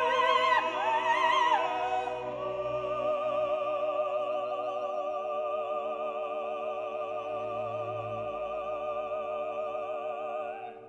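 Operatic singing over instrumental accompaniment: a short phrase, then one long note held with vibrato from about two seconds in, fading out near the end.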